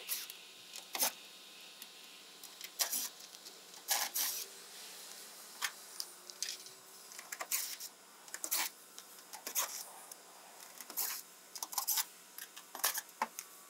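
Cordless drill/driver backing sheet-metal screws out of a package AC unit's access panels in short bursts, with sharp metallic clicks and clatter between them, about a dozen in all.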